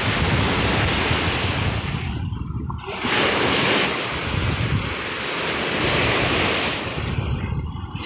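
Wind-driven lake waves breaking and washing up at the water's edge, the wash swelling and falling back every few seconds, with wind buffeting the microphone.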